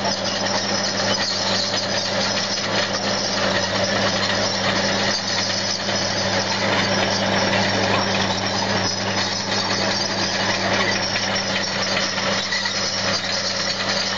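Tractor engine running steadily under load, pulling a Rapisarda plough through dry, cloddy soil.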